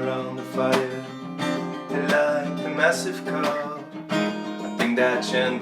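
Acoustic guitar strumming chords, each strum ringing on, as a pop song plays.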